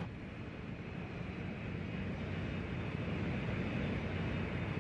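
Engines of a four-engine turboprop transport aircraft running, a steady drone that grows slightly louder.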